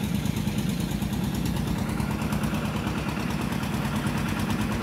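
A small engine running steadily at an even idle, with a regular low throb.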